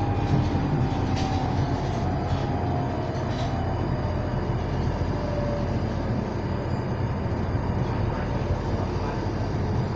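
London Underground Northern Line train running between stations, heard from inside the carriage: a steady rumble and rush of wheels on track, with a faint whine that slides slowly down in pitch over the first several seconds.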